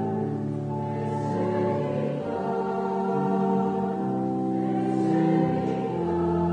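Slow church hymn for the offertory: voices singing over long held chords that change every second or so.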